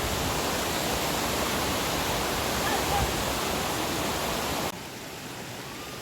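Waterfall rushing, a steady full noise of falling water that drops suddenly to a quieter rush near the end.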